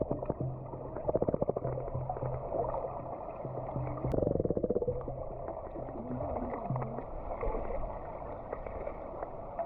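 Muffled underwater sound from a camera held below the surface of a pool: a low rumbling water noise, with a rapid run of bubbling about a second in and again about four seconds in.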